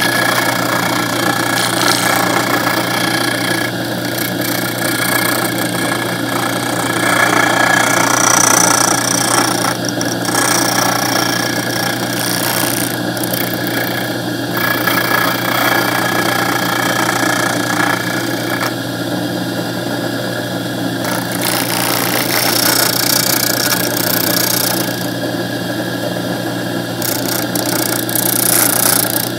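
Disc sander running with a steady motor hum while a small 3/8-inch plywood leg piece is pressed against the sanding disc. The scratchy sanding noise rises and falls as the edge is worked against the disc.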